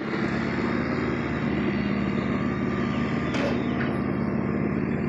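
An engine running steadily at one speed, a low, even drone.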